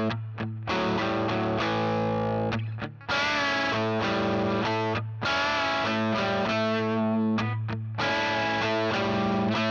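Background music led by a distorted electric guitar, playing sustained chords in phrases broken by short gaps every couple of seconds.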